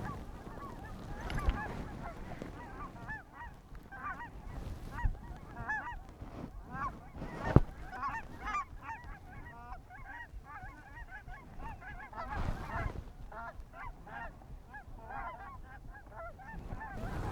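A flock of geese honking, many short overlapping honks. There is a single sharp knock about seven and a half seconds in.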